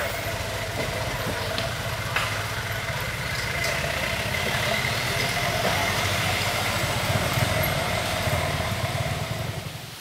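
Old truck's engine running as it drives along a dirt track: a steady low rumble that fades out just before the end.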